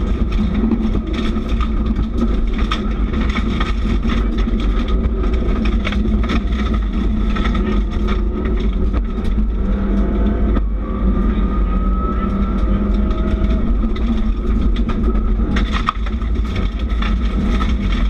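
Subaru Impreza rally car's flat-four engine running hard on a gravel stage, heard from inside the stripped cabin, with stones ticking against the underside. About ten seconds in the engine note dips briefly and then climbs steadily, as at a gear change.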